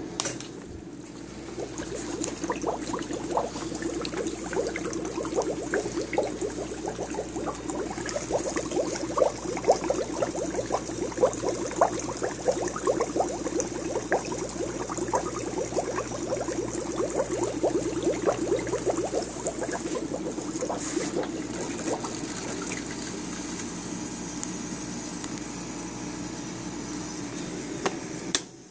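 Berkeley pump running with a steady hum while water gurgles and rushes through the plumbing with a dense crackle of bubbles. The pump is switched with a click at the start, and near the end a click cuts the sound off.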